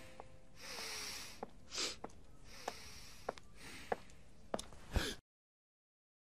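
Cartoon sound effects: a run of short breathy swishes and sniff-like puffs with small sharp clicks between them, cutting off abruptly about five seconds in.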